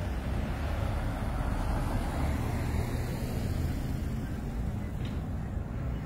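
A car driving past on the street, its tyre and engine noise a little louder about one to three seconds in, over steady traffic noise.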